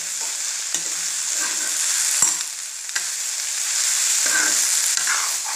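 Cut okra frying in hot oil in a kadai, sizzling steadily, while a steel spoon stirs and scrapes through it in several short strokes. A single sharp knock of the spoon against the pan comes a little over two seconds in.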